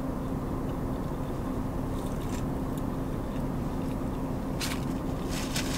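A person chewing a mouthful of fried chicken sandwich with mouth closed, over a steady low hum inside a car. A few short rustles or mouth clicks come about two seconds in and again near the end.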